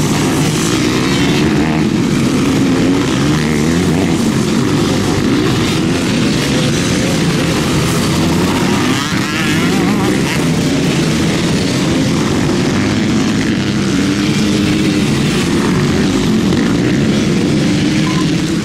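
Several motocross bikes racing through a dirt corner, their engines overlapping and repeatedly rising and falling in pitch as the riders close and open the throttle.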